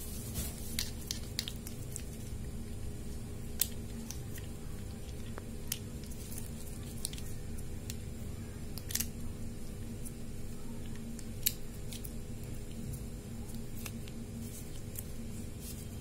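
Scattered sharp clicks and light scrapes from a small wheel-type tube cutter being handled and worked around a thin plastic tube, over a steady low hum.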